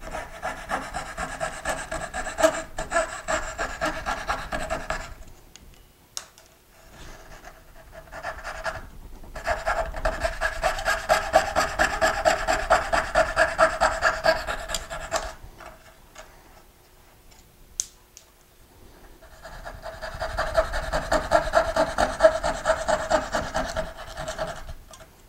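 Knew Concepts 5-inch woodworker's fretsaw cutting out dovetail waste in pine: the fine blade's rapid, even back-and-forth strokes in three bouts, with short pauses between them.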